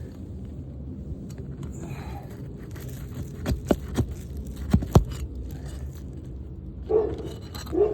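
Scraping and a quick run of sharp clicks as a hail-damaged asphalt shingle is pried and worked loose, over steady low background noise. Two short, louder sounds come near the end.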